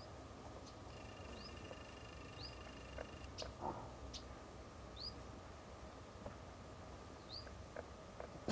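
Faint short, high, rising chirps repeated every second or two, a bird calling, over a steady faint hum, with a few short knocks, the loudest near the end.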